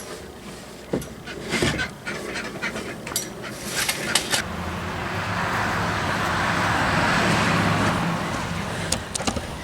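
A few sharp clicks and knocks, then a passing vehicle: a broad rush with a low engine hum that swells over about three seconds and fades away.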